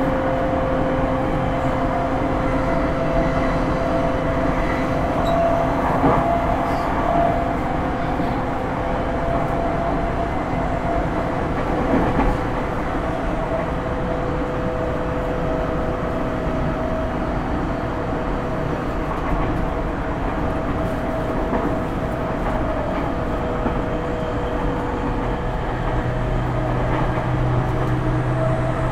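Running sound inside a JR East E231 series 1000 commuter train car at a steady speed: a continuous rumble of wheels on rail under a few level humming tones, with a couple of louder knocks partway through. A low hum comes in near the end.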